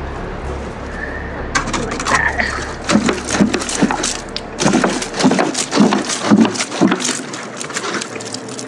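Water glugging out of a plastic gallon jug and splashing onto the dirt. There is a quick, irregular run of glugs and splashes for about six seconds, ending shortly before the end.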